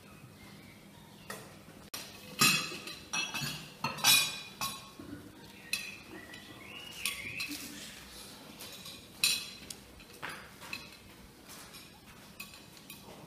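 Plates, glass dishes and cutlery clinking at a meal table as food is set down and people start eating: scattered sharp clinks, busiest between about two and five seconds in.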